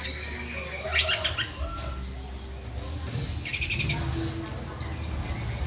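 Orange-headed thrush singing: a varied song of quick, high, downward-sliding whistles and fast stuttering trills, broken by short pauses.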